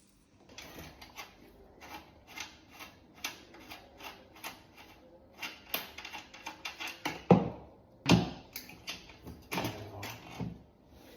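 Irregular clicking and knocking of bike parts and hand tools being handled and fitted during assembly, with two louder knocks about seven and eight seconds in.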